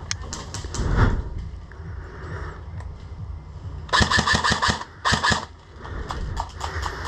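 Airsoft rifle firing two rapid full-auto bursts, the first about four seconds in and a shorter one just after, among scattered single clicks and rustling.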